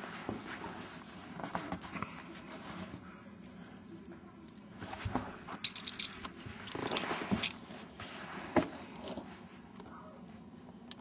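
Irregular rustling and scraping with several sharp knocks, heaviest in the second half, from movement in and around a cardboard box.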